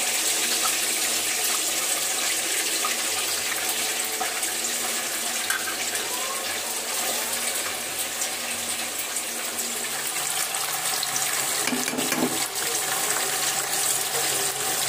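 Paneer cubes frying in hot oil in a kadhai: a steady sizzle with constant fine crackling. The wet cubes, lifted from water, make the oil spit.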